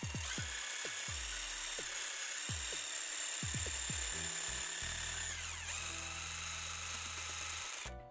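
Cordless impact driver fitted with a keyed drill chuck adapter, its motor running with a steady high whine as a small twist bit drills into wood. About five seconds in the pitch dips sharply and recovers, and the motor stops near the end.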